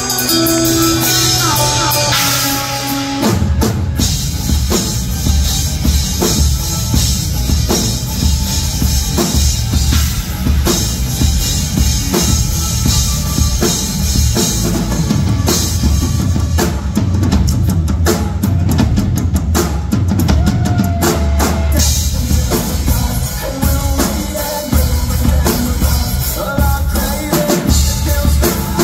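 Acoustic rock drum kit played in a live solo: a dense, fast run of bass drum strokes under snare hits and cymbals, kicking in heavily about three seconds in after a lighter opening.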